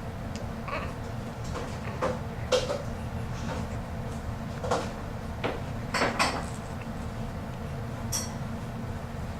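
Dishes and kitchenware being handled: a scattering of short clinks and knocks, the loudest about two and a half and six seconds in, over a steady low hum.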